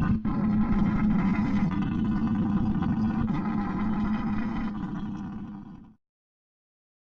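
A low, steady, engine-like rumbling drone with a strong hum, fading away and stopping about six seconds in.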